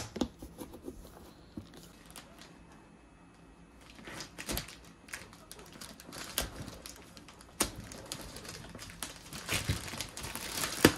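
Plastic poly mailer being torn open by hand and its plastic wrapping crinkled: scattered sharp rustles and crackles, sparse at first and busier from about four seconds in.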